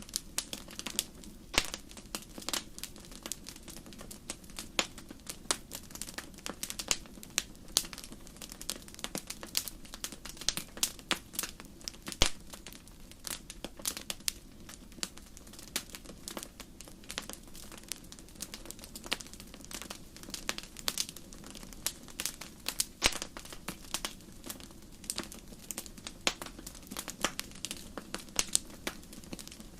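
Wood campfire crackling: irregular sharp pops and snaps, some clustered and some single, over a steady low rush of burning, with one louder pop about twelve seconds in.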